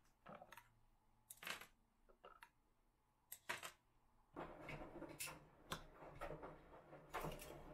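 Soft plastic clicks and taps as the stick-lids are pulled off a plastic popsicle mould and set down. From about four and a half seconds in, a metal spoon scrapes and clinks, spooning juice into the mould.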